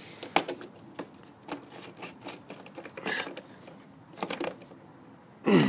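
Ratchet with a 10 mm socket clicking in short, irregular runs of light clicks as it tightens a nut on an engine's plastic top cover.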